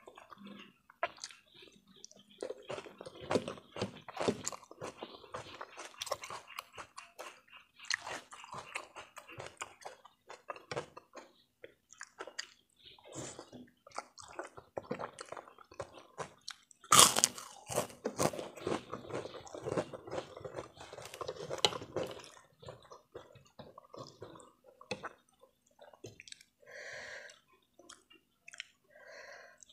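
Close-miked chewing of instant noodles: wet mouth clicks and smacks, with one loud, sharp mouth noise about 17 seconds in.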